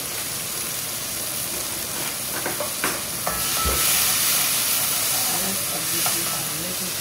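Chopped onion, cherry tomatoes and pimento peppers sizzling in hot avocado oil in a very hot pot, with a few knocks of a stirring utensil against the pot about two and a half seconds in. The sizzle gets louder a little past halfway.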